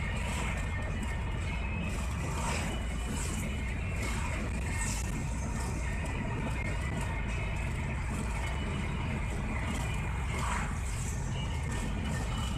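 Steady road and engine rumble of a car driving along a highway, heard from inside the cabin.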